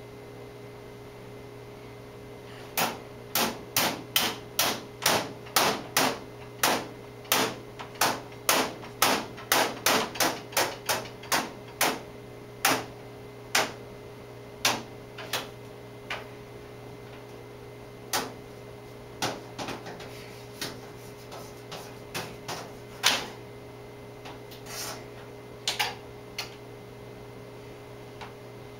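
A loop of stiff wire knocked and flicked against something hard by a baby's hand: a run of sharp clicks, about two a second at first, then coming more sparsely and stopping shortly before the end.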